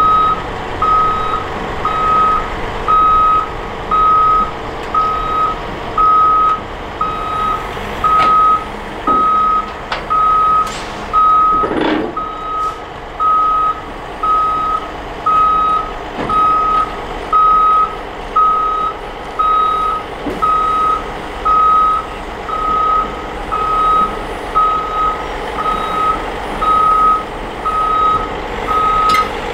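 Travel alarm on a Caterpillar 390F excavator beeping at one steady pitch, a little more than once a second, while the machine tracks off a lowboy trailer with its diesel engine running underneath. A brief louder clunk comes near the middle.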